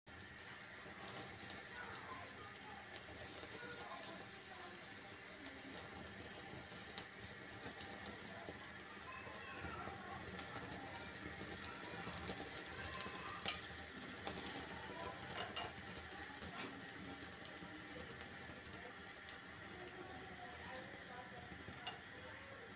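Marinated chicken tikka boti on bamboo skewers sizzling over an open gas burner flame, with a steady hiss. A couple of sharp clicks come about halfway through and again near the end.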